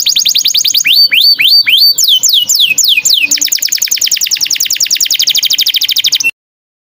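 Recorded songbird song: a run of repeated whistled notes that sweep sharply in pitch, then a fast, steady trill of quick notes that cuts off suddenly about six seconds in.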